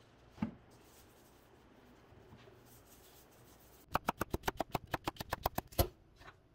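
Chef's knife chopping a cucumber on a wooden cutting board: a fast, even run of sharp knocks, about eight a second for two seconds, the last chop the hardest.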